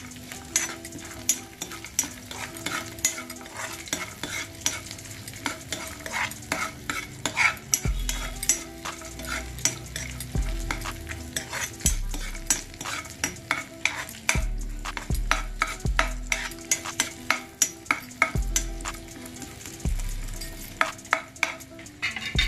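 Cashew nuts frying in ghee in a black iron kadai, sizzling steadily, while a spatula stirs them, scraping and clicking against the pan many times.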